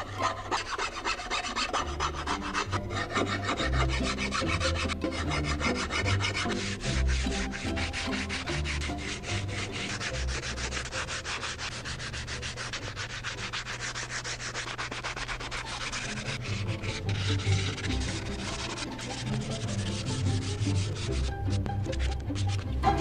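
A hand file, then sandpaper, rubbing over the wood of a small canoe paddle's shaft and grip in quick back-and-forth strokes.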